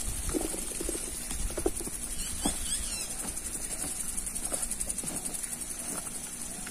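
Steady high, pulsing insect buzzing in the background, with scattered soft knocks and rustles close by. A few short chirps come in about two and a half seconds in.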